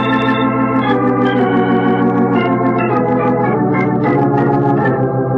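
Organ music bridge: a run of held chords that shift every second or so, marking a scene change in a radio drama.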